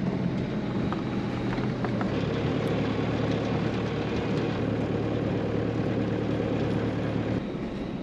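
Toyota Hilux ute's engine running steadily while driving slowly over a paddock, a low even drone with road and tyre noise. Near the end the drone eases off.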